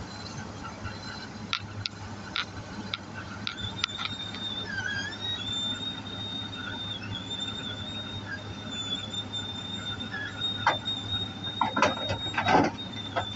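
Komatsu PC200 excavator running: a steady low engine hum under a wavering high-pitched squeal, with scattered clanks that grow louder and more frequent near the end.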